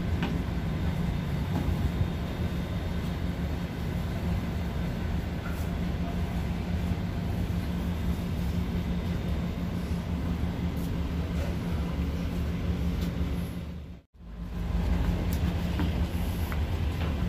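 Steady low drone of the KMP Nusa Agung car ferry's engines and machinery heard on board. It cuts out for a moment about fourteen seconds in, then returns.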